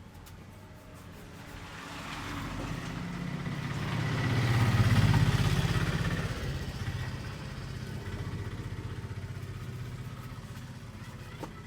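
A motor vehicle's engine passing by, a low hum that grows louder to a peak about five seconds in and then fades.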